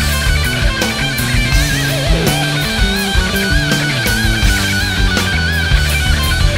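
Heavy rock music with electric guitar and a steady beat, a wavering lead line running over it.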